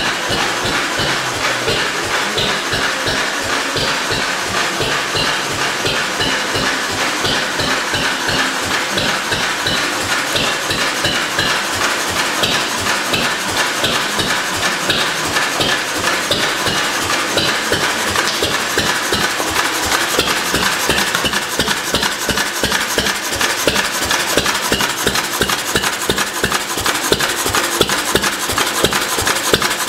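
Lister B type hopper-cooled stationary engine running steadily, its big flywheels turning, with a fast, even beat of firing strokes.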